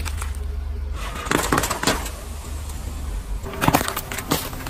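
Car tyre rolling over and crushing small objects: two clusters of sharp cracks and crackles, one about a second in and another near the end, over a low steady rumble from the car. The later cracks come as an aluminium drink can is flattened under the tyre, spilling its drink.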